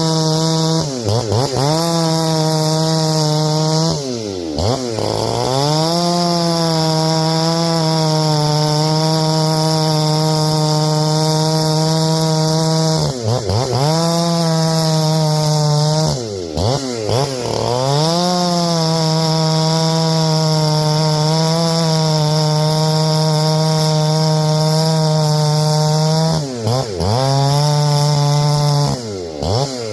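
Ported two-stroke Neotech 865 chainsaw with a 50 mm top end, held at high revs through long runs of several seconds. Its revs drop sharply and climb back about six times, as the throttle is let off and opened up again.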